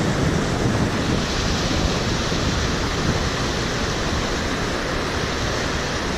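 Steady rush of a large river's flowing water, mixed with wind buffeting the microphone in a low rumble.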